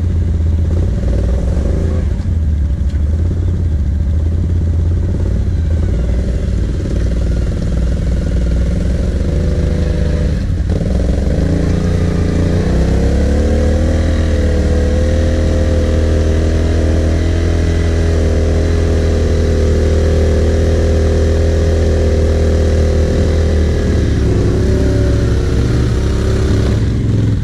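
Quad (ATV) engines running close by in deep mud, with a strong low steady note. About twelve seconds in, an engine revs up, holds the higher revs for about ten seconds, then drops back near the end.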